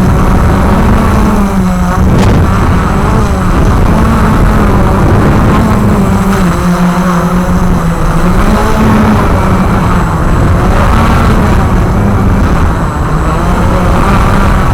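Walker QR X350 Pro quadcopter's motors and propellers whirring steadily in flight, the pitch wavering up and down every second or two.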